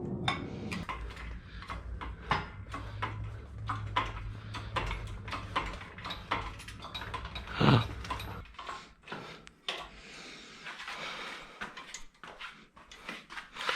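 Metal clanks and knocks as a Honda K24A2 engine, hooked up to be lifted, is moved onto an engine stand. One sharp knock comes about eight seconds in. A low steady hum runs under the first eight seconds and then stops.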